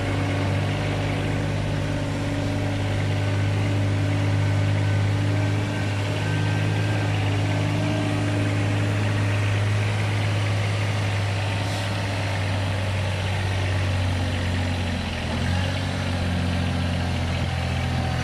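Engine of a Wacker Neuson 1501 dumper running steadily at low speed while it is driven slowly up a loading ramp onto a truck.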